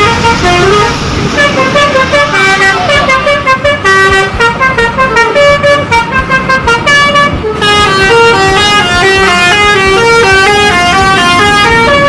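Bus 'telolet' musical air horn playing a melody of rapidly stepping notes. For the first seven and a half seconds the notes come in short choppy pulses, then the horn runs on in a smoother, higher string of notes.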